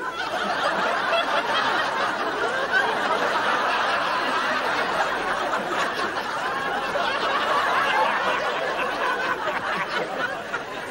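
Studio audience laughing, many people chuckling and tittering together; the laughter swells just after the start and carries on steadily.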